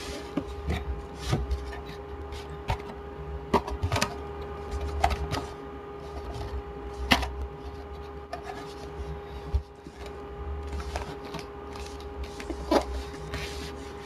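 Packaging of a Mac Mini being handled and unpacked: scattered irregular clicks, knocks and rubbing of cardboard and plastic, over a steady background hum.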